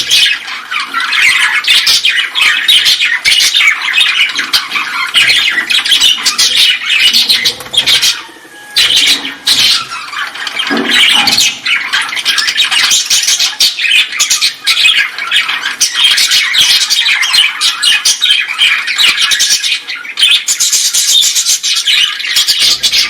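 A colony of birds calling together in a dense, continuous chatter of squawks, with a brief lull about eight seconds in.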